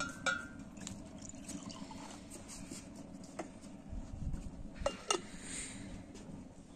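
Drink poured from a large glass jar into a ceramic mug, with the clink of jar against mug at the start and several sharp clinks and knocks as the jar and mug are handled and set on the table, the loudest two about five seconds in.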